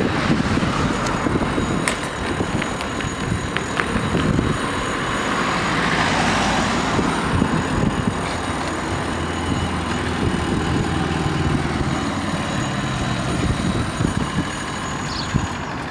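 Level-crossing warning bells ringing steadily as a thin, high, continuous tone, with cars driving over the crossing and engines running while they wait. The ringing stops shortly before the end, as the barriers come down.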